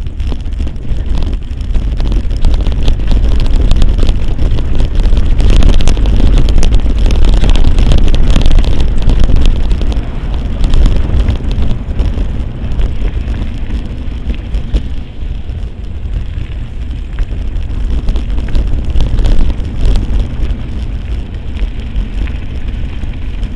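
Mountain bike ridden fast over a dirt trail, recorded on a bike-mounted action camera. Heavy wind buffeting on the microphone makes a deep rumble, with the bike rattling and clicking over bumps. It is loudest in the first half and eases a little later on.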